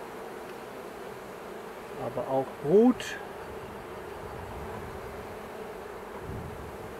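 Honeybee colony humming steadily from the open hive. About two seconds in, a short rising vocal sound, the loudest moment, is followed by a brief sharp click.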